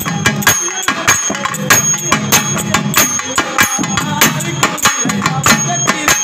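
Loud percussion music: drums struck in a fast, driving rhythm of sharp strokes, with a steady low tone held underneath.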